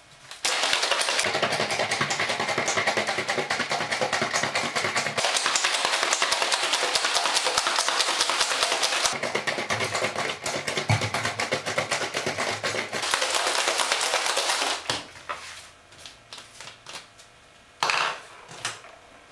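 Ice cubes rattling hard inside a closed bottle of espresso martini mix as it is shaken like a cocktail shaker, a fast clatter for about fourteen seconds that then stops. A few knocks follow, with one louder knock near the end.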